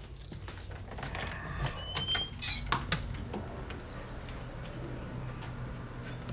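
A house door being opened and pulled shut: a cluster of clicks and knocks with a short high squeak in the first three seconds, then steady low background noise.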